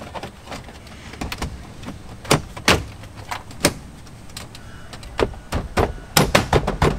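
Plastic dash trim bezel of a Ford F-250 being pressed and snapped into place around the head unit: a series of sharp clicks and knocks, coming thickest near the end.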